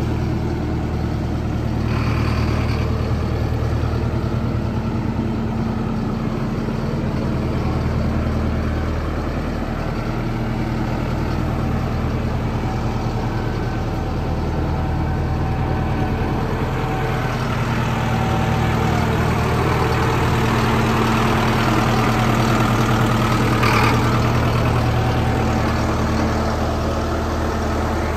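Sonalika Tiger tractor's diesel engine running steadily as the tractor is driven slowly, a low engine note with small shifts in pitch.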